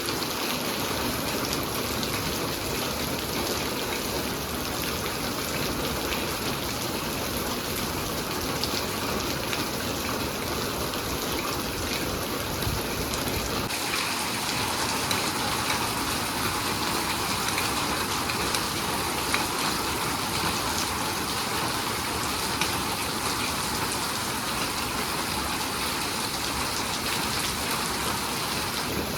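Heavy rain falling steadily, an even hiss with no break, its tone shifting slightly about halfway through.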